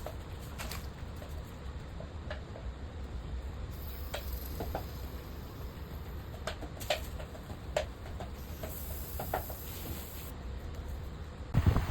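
Low steady hum with scattered light clicks and ticks, then near the end a louder fan noise starts suddenly, as from an air conditioner's fan coming on.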